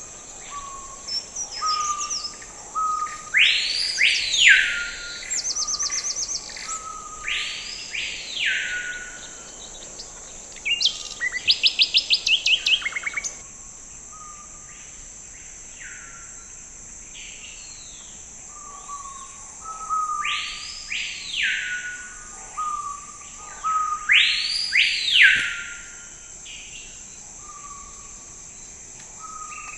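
Birds calling: a loud arching call repeated every few seconds, short lower notes in between, and a fast trill of rapid notes about a third of the way in, over a steady high insect drone.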